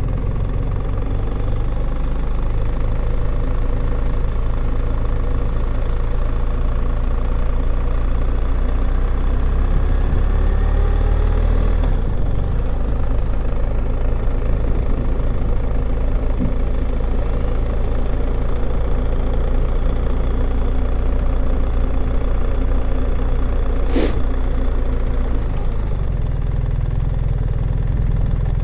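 A vehicle's engine and road noise, steady while it drives, with one sharp click near the end.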